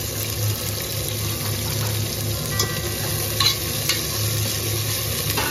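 Shallots and chopped onion sizzling as they fry in oil in a pressure cooker, stirred with a spatula. A few short clinks of the spatula against the pot come a little past the middle.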